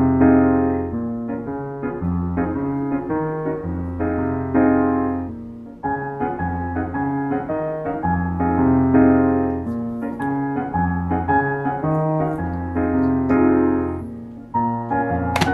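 Background piano music: gentle chords over a steady bass line, changing about once a second, with a brief sharp click near the end.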